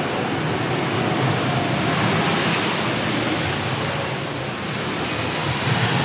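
Jet engine noise from a landing Boeing 777 Freighter's GE90 engines: a loud, steady rushing sound with a faint tone running through it, easing slightly about four seconds in.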